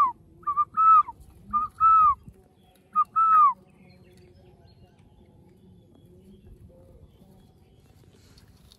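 A bird calling: four quick two-note calls, each a short note followed by a longer one that slurs down in pitch, in the first three and a half seconds, then only faint background.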